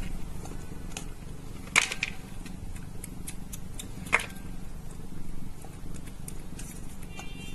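Pieces of cooked chicken breast set down into a plastic pet food dish: two sharp clicks about two and a half seconds apart, with lighter taps between, over a steady low hum.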